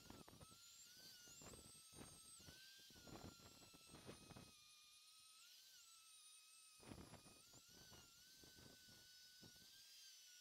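Dremel rotary tool with an abrasive head, faint and whining at high speed against the engine's inlet manifold. Its pitch dips briefly as it is pressed on, about three and seven seconds in, and there are bursts of scraping strokes in the first half and again around seven seconds.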